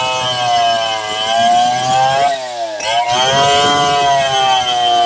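Two-stroke Stihl chainsaw running at high revs while cutting through a thick log, its pitch wavering under the load. About halfway through, the pitch briefly drops and then climbs back.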